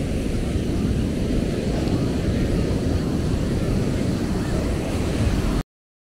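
Steady outdoor beach ambience, a continuous low wash of noise, cutting off suddenly about five and a half seconds in.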